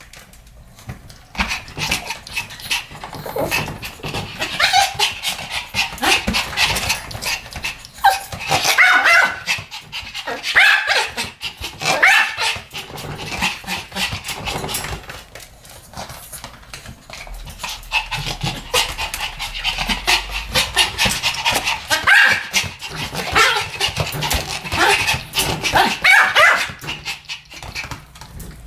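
Two Pomeranians barking together, a long run of sharp, high-pitched yaps in quick succession, with a short lull about halfway through.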